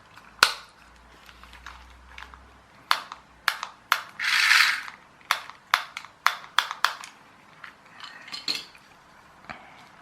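Small plastic clicks and knocks from handling and working the opened wired remote control of a toy car and its rocker switch, with a short scraping rasp about four seconds in.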